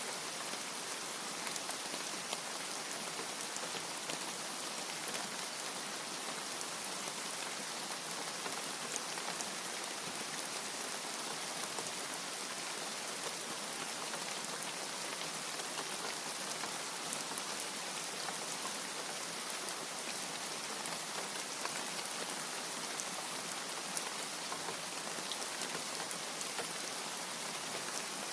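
Steady, even rain with scattered individual drop ticks and no thunder.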